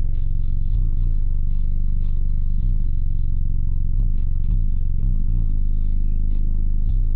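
Deep bass notes of music playing very loud through twelve Darkai 12-inch subwoofers, heard from inside the car's cabin, with short clicks and rattles running through it.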